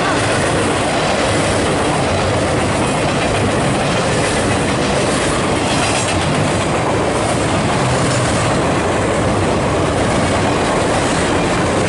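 Loaded double-stack freight cars of a CSX train rolling past close by, their steel wheels running on the rails in a steady, loud, unbroken rumble.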